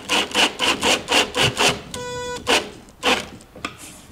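Cordless 14.4 V impact driver driving a screw through the cajon's plywood front panel into the box, in a run of short hammering pulses, about four a second. A brief buzzing tone sounds about two seconds in, followed by two more pulses.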